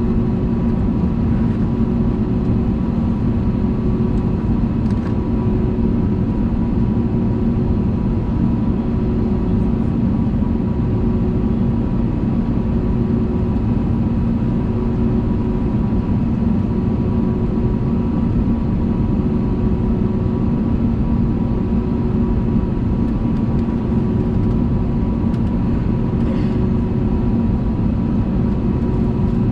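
Airbus A320neo cabin noise in flight: a steady drone of the engines and airflow with a constant low hum running through it.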